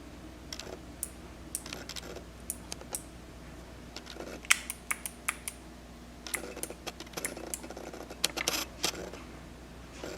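Kailh mechanical keyboard switch in a 3D-printed clicker pressed again and again, giving sharp clicks in irregular runs, the loudest about 4.5 s in and a quick flurry near the end. A faint steady hum from camera autofocus lies beneath.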